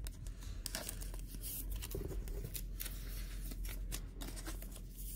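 Clear plastic card sleeve and rigid top loader rustling and scraping in the hands as a trading card is slid into them, a run of irregular short scratchy rustles.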